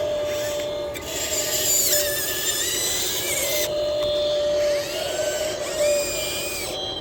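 Small electric motors of a model excavator whining, their pitch sliding up and down as the machine works. From about one second in to nearly four seconds a rough scraping noise rides over them, typical of the bucket working in gravel.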